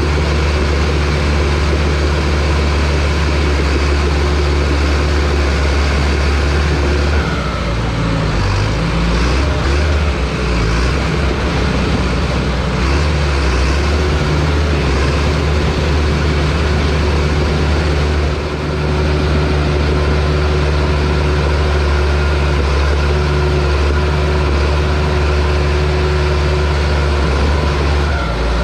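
John Deere bulldozer's diesel engine running loud and steady. Its note shifts and wavers for about ten seconds as the dozer works, then settles back to a steady drone.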